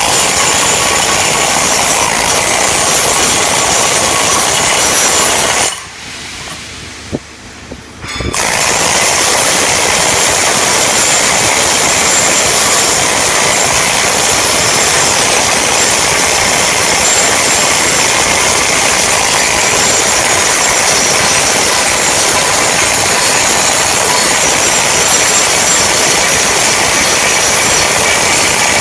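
Flux-cored arc welding on stainless steel: the loud, steady hiss of the arc. It stops for about two seconds some six seconds in, with a single click during the pause, then strikes up again and runs on evenly.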